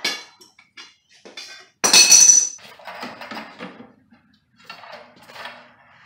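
Metal clinks and rattles from copper pipe and fittings being handled and offered up for fitting, with one loud ringing metallic clank about two seconds in.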